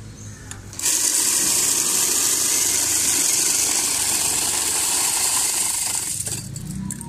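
Electric ice crusher shaving ice into a bowl: a loud, steady hissing noise that starts about a second in and stops about six seconds in.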